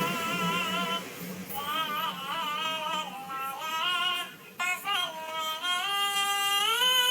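High-pitched, sped-up singing voice of an animated cat, singing a wavering, ornamented melody with long held notes. It breaks off briefly about four seconds in and steps up in pitch near the end.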